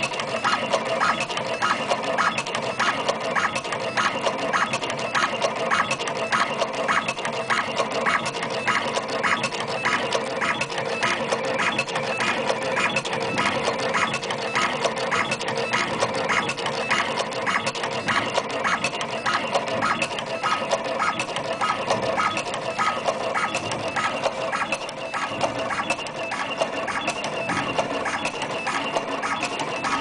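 YH BNX2 automatic wire stripping, cutting and twisting machine running steadily, with an even clacking of about three strokes a second over a steady mechanical hum.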